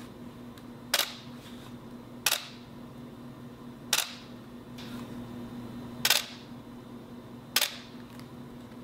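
Canon EOS-1D X Mark II DSLR taking single shots: five sharp mirror-and-shutter clacks at uneven intervals, each one short.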